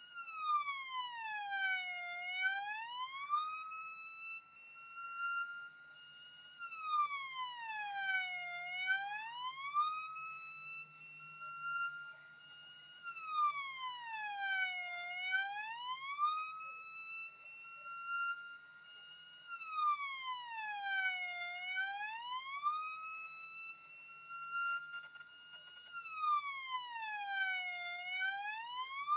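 Siren sounding a slow, repeating wail. The pitch drops for about two seconds, then climbs back more slowly, and the cycle repeats about every six seconds.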